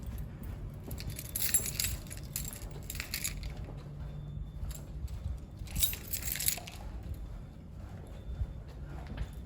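Two spells of rustling, clinking handling noise, the first about a second in and lasting a couple of seconds, the second briefer near the middle, over a faint steady low hum.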